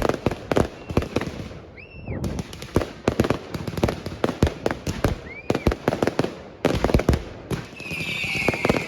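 Fireworks going off in quick succession: many sharp bangs and crackles, with a couple of brief rising-and-falling whistles. Near the end a high, hissing whistle sets in and carries on.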